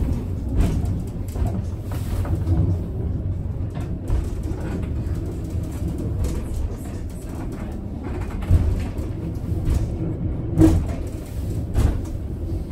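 Funicular railway car running on its track, heard from inside the cabin: a steady low rumble with a few sharp knocks in the second half.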